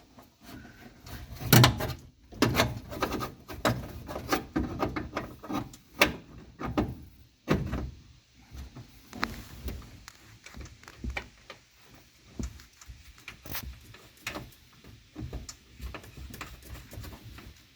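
Irregular clicks, knocks and rattles of a new ignition switch and bezel being handled and fitted into a van's steering column. The sharpest knocks come about one and a half seconds in and about six seconds in.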